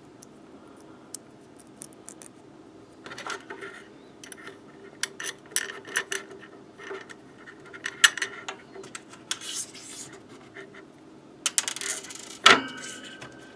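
Small metal hardware clinking and rattling as it is picked through and handled, in scattered bursts of clicks. Near the end comes one louder sharp clink with a short ring.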